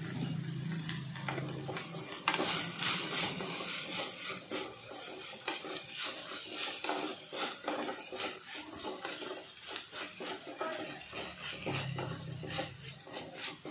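Wooden spoon stirring and scraping sliced onions frying in an earthenware clay pot, a run of quick irregular scraping strokes.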